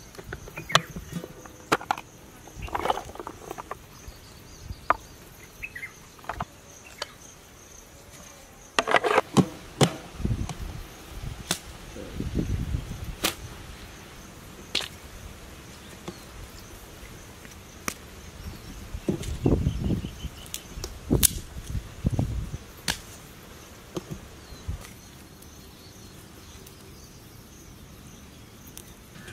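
Faint steady high insect drone, with many sharp clicks and knocks and some low thumps scattered through.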